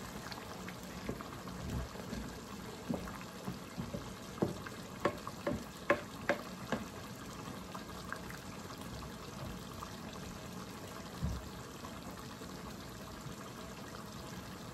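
Pot of rice with freshly added hot water sizzling on the stove, with a cooking spoon clicking against the pot several times in the first seven seconds and once more later.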